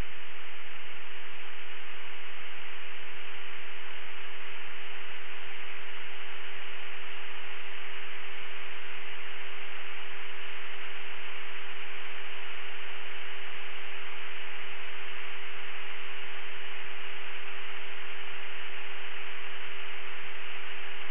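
Steady hiss of static on a military jet's cockpit audio recording, with a single steady hum under it.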